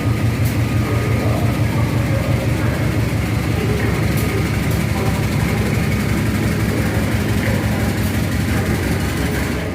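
A train running steadily, with a low, even engine hum.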